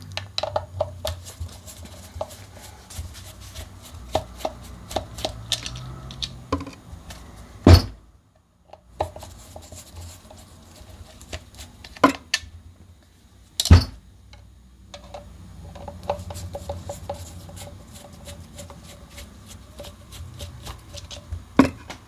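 Screwdriver backing screws out of a plastic washing machine drain pump housing: many small clicks and scrapes of metal on plastic, with a few sharp knocks as the pump or screws are set down, over a steady low hum.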